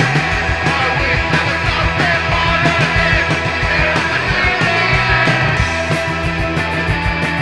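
Rock band recording: bass and drums with guitar lines weaving above them. About six seconds in, a fast, even hi-hat or cymbal pattern comes in.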